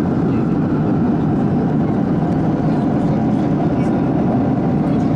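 Steady cabin noise of a Boeing 737-800 in cruise: the even rush of air past the fuselage together with the hum of its CFM56 engines, heard from a window seat beside the wing. The level holds constant throughout.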